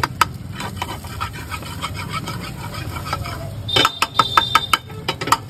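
Metal spatula scraping and clinking in a pan as egg keema is stirred and cooked, in repeated strokes with a quicker, louder run and a brief metallic ring about four seconds in. A steady low hum runs underneath.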